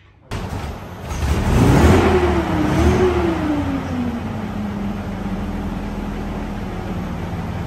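Centurion tank's Rolls-Royce Meteor V12 petrol engine starting up. It comes in suddenly, revs up twice, then settles into a steady idle.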